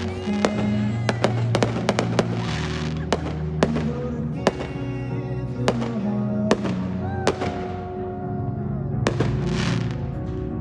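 Fireworks going off in sharp bangs and pops at irregular intervals, over music with long held notes.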